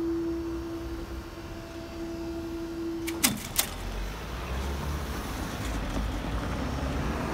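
Level crossing barriers' power unit humming steadily while the booms finish rising, then winding down with a falling pitch about three seconds in, together with two sharp clicks as the barriers come up fully. Cars then start driving across the crossing with a low rumble.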